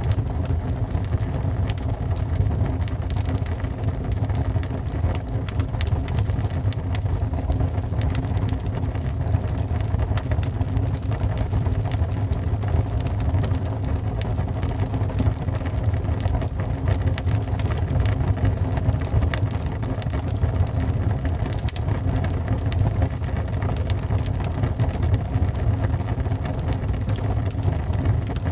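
Wood fire burning in a fireplace: a steady low roar with frequent scattered crackles and pops.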